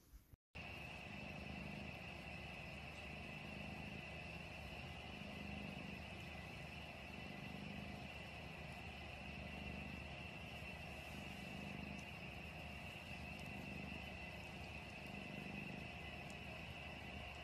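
A domestic cat purring steadily close to the microphone, the purr swelling and easing with each breath, over a faint steady high whine.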